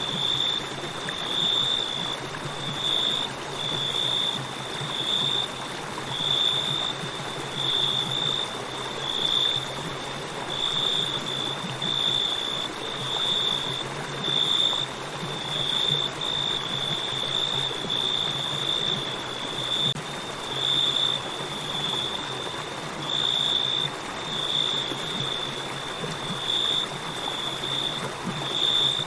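River water flowing in a steady rush, with crickets chirping over it in a high, continuous pulsing trill.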